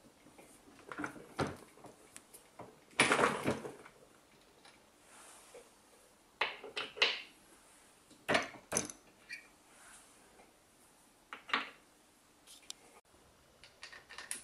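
Metal clicks and clatter from handling a reloading press with a collet bullet puller die and brass cartridge cases. A louder rattling scrape comes about three seconds in, followed by scattered clicks and knocks.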